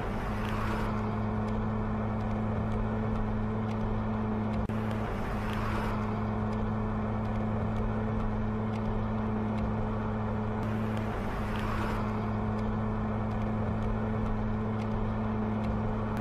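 Chevrolet Opala four-cylinder engine idling steadily with the car standing still: an even, unchanging low hum with no revving.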